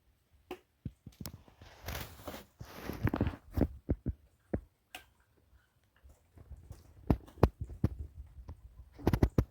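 Firewood logs being handled and stacked: irregular knocks of wood on wood with scraping and shuffling between them.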